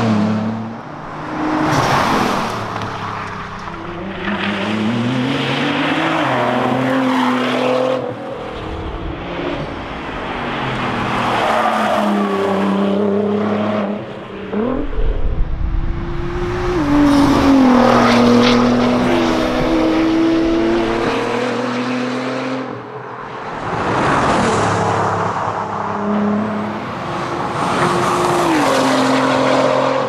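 Nissan R35 GT-R's twin-turbo 3.8-litre V6 revving hard as the rally car accelerates past, in several separate passes, its pitch climbing and then stepping down at gear changes.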